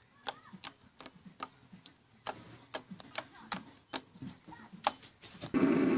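Slime being poked and squeezed, giving a string of irregular sharp clicks and pops. Near the end, a loud steady sound starts abruptly.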